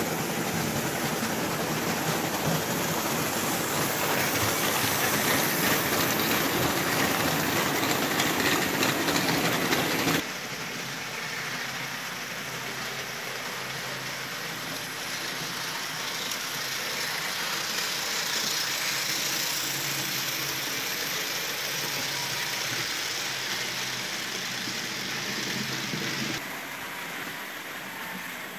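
Electric model trains running on metal track: a steady running noise of wheels and motors. The level drops abruptly about ten seconds in and again near the end.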